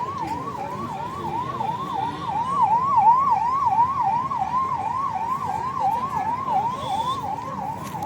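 Electronic siren in a fast yelp, its pitch sweeping up and down about three times a second, over steady street noise.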